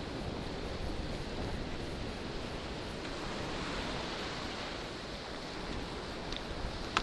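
Wind buffeting the microphone of a handlebar camera on a moving bicycle, over the steady wash of ocean surf breaking along the beach. A single sharp click just before the end.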